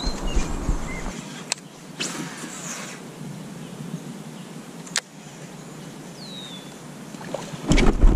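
Quiet lake ambience around a kayak: a low, even hiss of water and air with a few sharp clicks and a short falling chirp. A louder rush of noise begins near the end.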